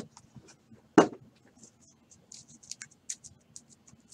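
Trading cards in plastic sleeves and top loaders being gathered and handled: a sharp tap about a second in, then a run of light plastic clicks and rustles.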